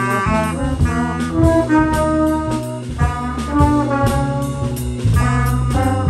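Live brass-and-rhythm band playing: two trombones play a jazzy melody of held and moving notes over an electric bass guitar line, with a steady beat.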